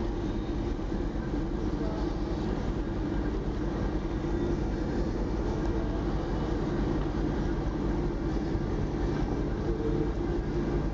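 A ferry's engines droning steadily, heard from on board, a constant low hum that does not change.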